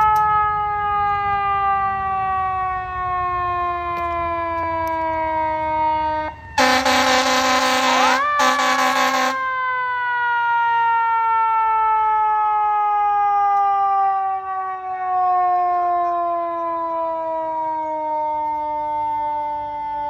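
Fire engine siren sounding as the truck approaches, its pitch sliding slowly downward. About a third of the way in two loud air horn blasts cut over it, then the siren climbs back up and winds slowly down again over the truck's engine rumble.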